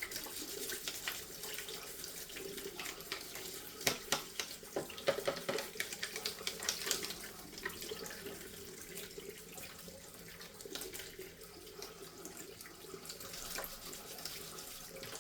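Tap water running into a sink while a plastic washing machine detergent drawer is scrubbed under it with a toothbrush, with a cluster of light clicks and knocks about four to seven seconds in.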